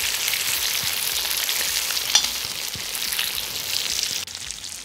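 Pork chunks sizzling in hot oil in a cast-iron kazan, stirred at first with a metal spatula, with one sharper click about two seconds in. The sizzling drops off near the end.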